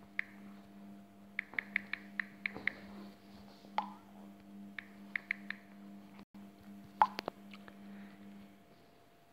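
Typing on a smartphone's on-screen keyboard: a quick run of about seven taps, then three or four more, then a sharper tap about seven seconds in. A faint steady hum runs underneath and stops near the end.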